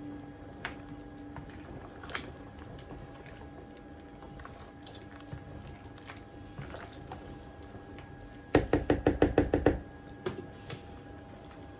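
Kitchen background with a faint steady hum and a few light clicks, broken a little over eight seconds in by a quick run of about ten loud knocks lasting just over a second.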